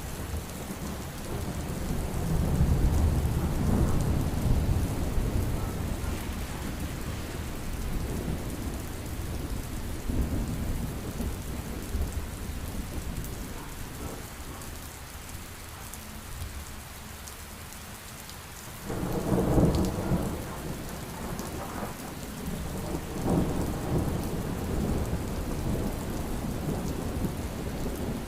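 Heavy rain falling steadily with rolling thunder. A long low rumble swells early on, and the loudest, sharpest thunderclap comes about two-thirds of the way through, followed by more rumbling.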